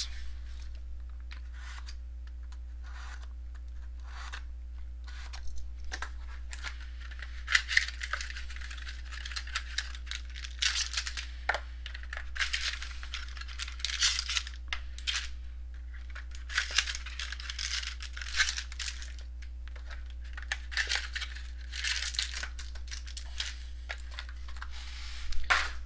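Foil card packs and their box being handled and torn open: repeated crinkling, tearing and rustling with small clicks and taps, over a steady low electrical hum.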